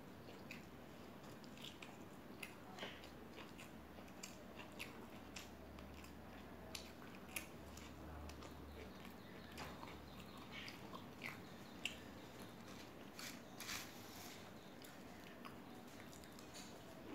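Close-up eating sounds of someone biting and chewing a crispy fried pakoda: faint, scattered crunches and mouth clicks, a few louder ones past the middle.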